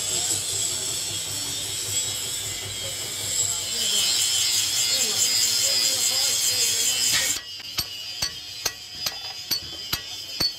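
A steady high-pitched hiss that cuts off suddenly about seven seconds in. It is followed by a ratchet wrench clicking about twice a second as a mechanic turns a bolt on a truck's drum-brake backing plate.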